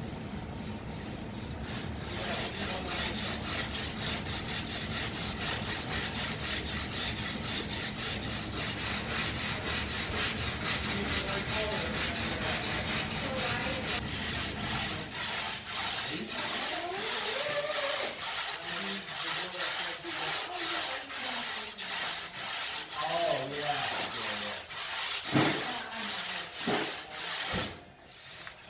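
Quick, rhythmic abrasive rubbing strokes, like hand sanding or scuffing a surface. The strokes thin out later, with a sharper knock near the end.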